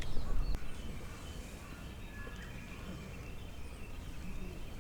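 Outdoor ambience: a steady low rumble with faint, distant bird calls.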